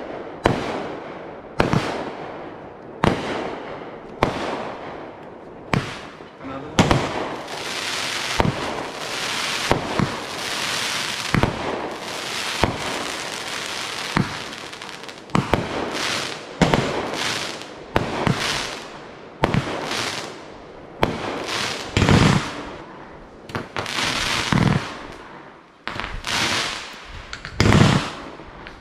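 Aerial fireworks going off in quick succession, with sharp bangs about once a second and a stretch of denser crackle in the middle.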